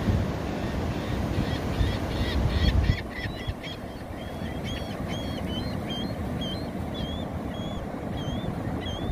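Ocean surf washing steadily on a sandy beach, with a heavy low rumble that stops about three seconds in. Birds call throughout the second half in a string of short, high chirps, about two a second.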